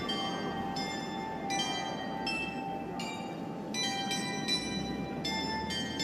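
A slow melody of bell-like chime notes, roughly one every three-quarters of a second, playing over steady street traffic noise.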